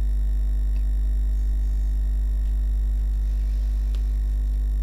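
Steady low electrical mains hum with a ladder of even overtones, unchanging throughout, and a few faint ticks.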